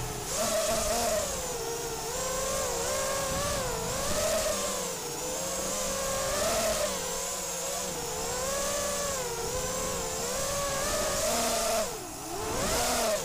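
Lumenier QAV210 racing quadcopter's Cobra 2204 2300kv brushless motors and HQProp 5040 three-blade propellers whining in flight, the pitch rising and falling constantly with the throttle. About twelve seconds in, the pitch drops sharply and then climbs back up as the throttle is punched again.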